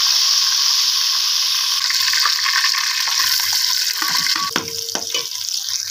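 Hot oil sizzling steadily in a metal cooking pot. About four seconds in there are a few clinks as sliced onions are tipped in from a bowl.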